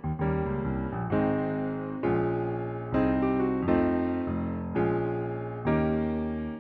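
Solo piano playing a slow, gentle piece, a new chord struck about once a second and left to ring.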